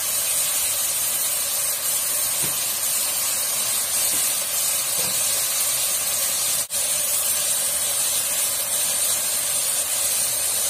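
Meat cubes and sliced onions sizzling in oil in an aluminium pot: a steady hiss that cuts out for an instant about two-thirds of the way through.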